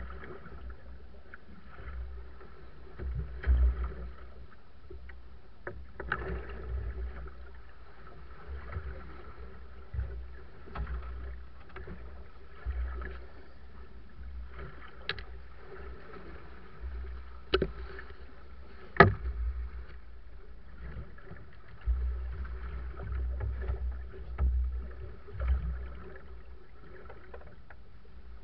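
Small open wooden fishing boat at sea: wind rumbling on the microphone and water washing against the hull, with scattered knocks in the boat, one sharp knock loudest about two-thirds of the way through.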